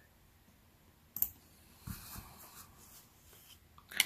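Cardstock panels being handled and laid on a tabletop: a sharp tap about a second in, a soft paper slide around two seconds, and a louder sharp tap near the end.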